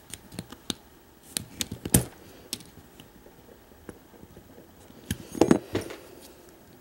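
Small metal clicks and taps of a Defiant deadbolt lock cylinder being handled while its retaining clip is worked off. A louder knock about two seconds in and a quick cluster of clicks about five and a half seconds in.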